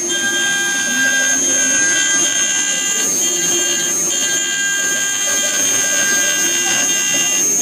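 Small CNC router engraving wood: a steady high whine from the spindle, with lower motor whines that change pitch and break off every second or so as the head moves.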